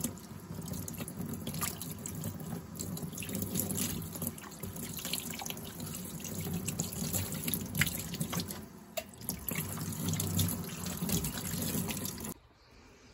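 Tap water running into a utility sink and splashing over a dirty shop-vac filter being rinsed and squeezed under the stream, with scattered drips and splashes. The water stops abruptly shortly before the end.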